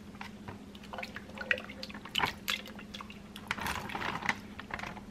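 Minestrone soup being ladled into a plastic zip-top freezer bag: repeated wet pours and drips, with small clicks of the ladle against the pot and bag. A faint steady hum runs underneath.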